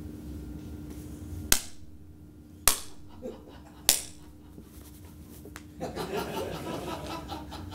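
Three sharp hand slaps, about a second apart, from a person miming a laughing fit. A softer, continuous rustle follows for the last two seconds.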